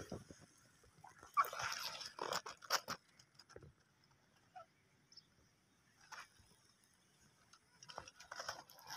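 Footsteps crunching on dry leaves and dirt, a cluster of crunches in the first few seconds, then mostly quiet with a few faint clicks, and more rustling near the end.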